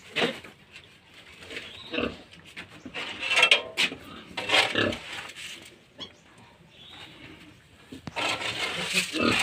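Pigs calling in short, irregular bursts, with the loudest calls around the middle and again near the end.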